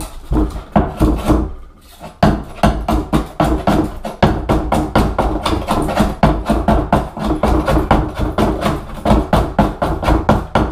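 Hand scraper chipping and prying a glued-down cork underlayment tile off a plywood subfloor, in quick repeated scraping strokes, a few a second, with a short pause about two seconds in. The cork comes up in chunks as the spray adhesive gives way.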